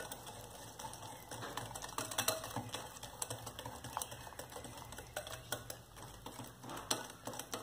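Wire whisk beating a thick, creamy mixture in a glass bowl, its wires clicking and tapping irregularly against the glass, several times a second.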